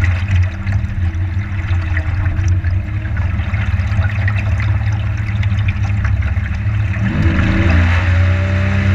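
Boat motor running steadily, with water rushing and splashing along the hull. About seven seconds in, the engine speeds up, its pitch rising and getting louder.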